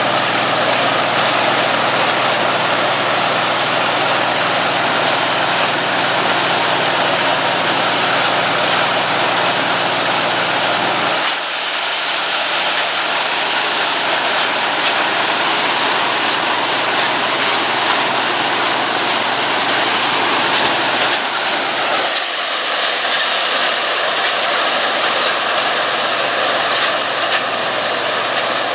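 John Deere 55 EB combine harvesting soybeans: its gasoline engine and threshing machinery running steadily as a loud mix of engine drone and mechanical rattle. The low engine hum drops away about a third of the way through and again around two-thirds.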